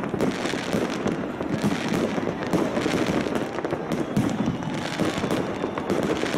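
Aerial firework shells bursting in quick succession: a dense run of overlapping bangs and crackles with no pause between them.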